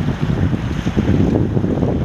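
Wind buffeting the microphone of a camera aboard a sailing dinghy: a loud, uneven, gusty rumble.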